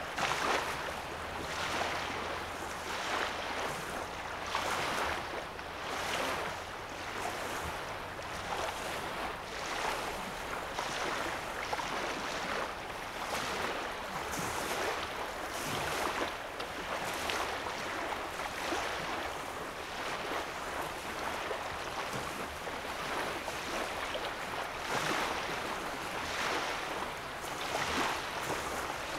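Small waves lapping on a sandy lake shore, washing in softly every second or two.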